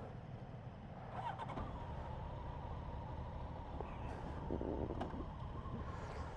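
A motor vehicle running, a low rumble with a steady high whine that comes in about a second in.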